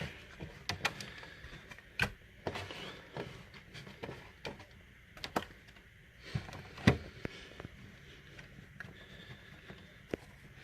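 Scattered light knocks and taps as a water dish and other items are set down and shifted inside a terrarium. The loudest knock comes about seven seconds in.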